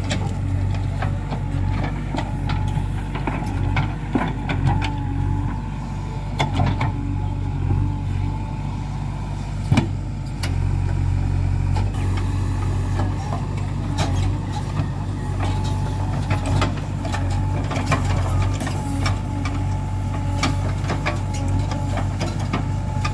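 JCB 3DX backhoe loader's diesel engine running steadily under load while the backhoe digs, with a wavering whine over it. Scattered knocks and clanks from the bucket and arm working the soil, one sharp knock about ten seconds in.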